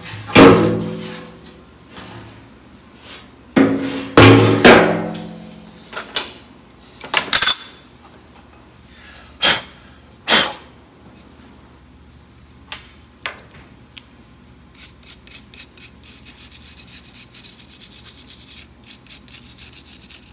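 Hands working on metal car parts: a string of knocks and clanks, the first few ringing briefly with a pitch, then single sharp knocks and, from about three-quarters of the way through, a fast run of light clicks.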